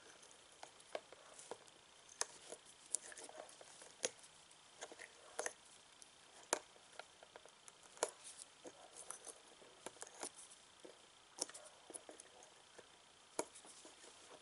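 Faint, irregular small clicks and rustles of handling as hands hold a UV curing light pen and a glued plastic fitting against a plastic headlight housing, over a faint steady high whine.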